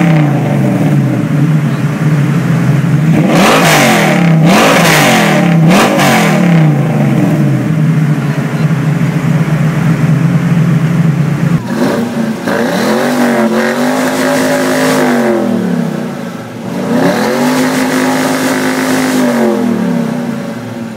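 Ford Mustang V8 revved at the exhaust in three quick blips, then idling steadily. Just before halfway it gives way to an SN95 Ford Mustang GT's V8, revved twice in slower pulls that each rise, hold and fall.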